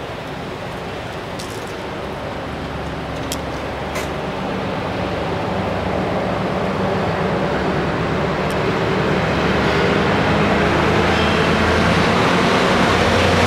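DB class 294 (V90) diesel-hydraulic shunting locomotive approaching, its engine drone growing steadily louder as it nears.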